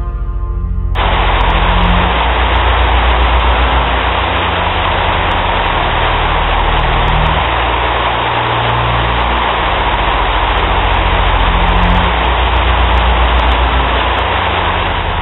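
Heavy rain pouring down: a dense, steady hiss that starts abruptly about a second in and cuts off near the end, over a low drone.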